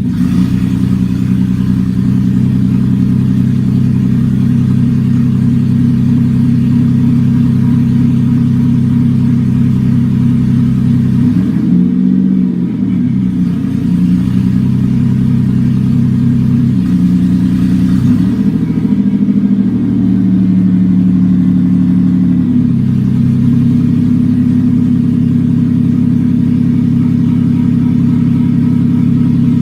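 Toyota Avalon's 3.0 L V6 running with open exhaust manifolds and no exhaust pipes: a loud, deep, steady idle, with a brief rev and fall back about twelve seconds in and a smaller one around eighteen seconds.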